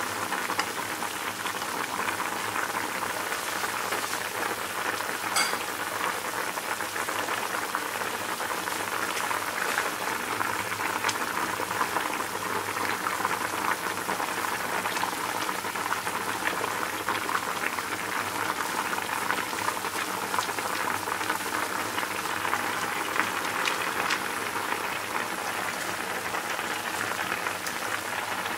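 A pan of chicken and papaya soup at a steady rolling boil, bubbling with many small pops.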